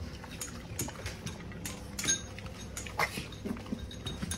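Small dogs eating from their food bowls: irregular clicks and clinks of chewing and of bowls being nosed, with a few brief low sounds among them.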